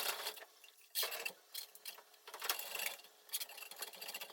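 Drain snake's coiled steel cable clicking and rattling as it is worked into a drain pipe, in irregular bursts.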